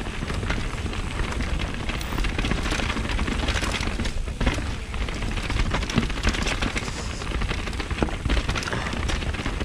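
Vitus Sommet VR mountain bike riding fast down a dirt forest trail: a steady low wind rumble on the camera's microphone with constant rattling and clatter from the tyres, chain and frame over the rough ground.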